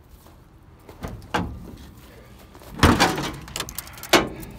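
The fire-damaged steel hood of a burned-out car being opened: several metal clunks and knocks, the loudest a clang with a ringing scrape about three seconds in, and another sharp knock just after four seconds.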